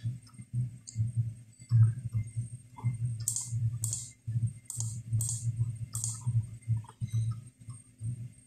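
Computer mouse clicking: about five sharp clicks, roughly one every second or less, between about three and six seconds in, over a low hum.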